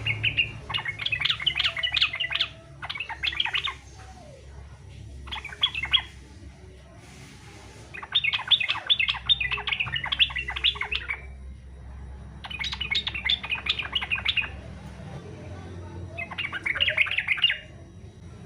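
Yellow-vented bulbul (trucukan) singing its fast, chattering 'fighter' song in about six phrases of one to three seconds each, with short pauses between.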